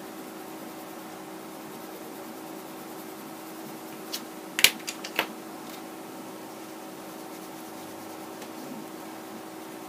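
Faber-Castell watercolour pencils clicking against each other and the page as one is put down and another picked up, a quick cluster of sharp clicks about four to five seconds in. Under it, a steady low hum.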